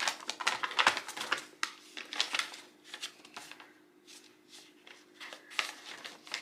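Irregular light rustling and clicking of something being handled, thinning out about halfway through, over a faint steady hum.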